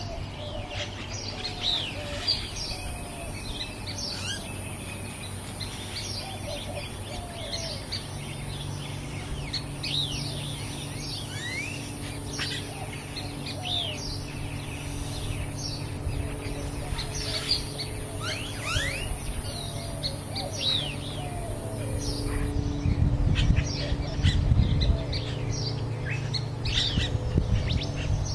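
Several small birds chirping and calling throughout, over a steady high-pitched buzz that cuts off suddenly a little over three-quarters of the way through. Low rumbling comes in near the end.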